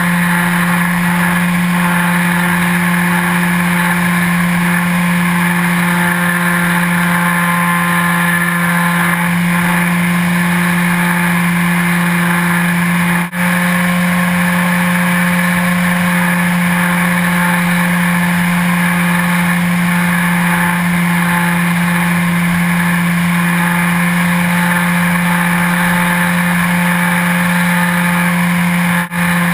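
Remote control airplane's motor and propeller droning at a steady pitch, heard close up from the camera mounted on the plane. The drone drops out for an instant about halfway through and again near the end.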